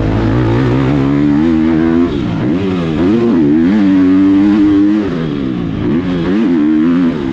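Motocross bike engine at full throttle as the rider accelerates along the track, the engine pitch climbing and falling back several times with gear changes and throttle lifts.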